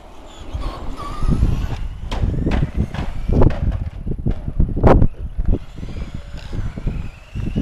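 RC car running across asphalt: a motor whine that rises in pitch as it speeds up, over a rough rumble of tyres, with several sharp knocks, the loudest about five seconds in.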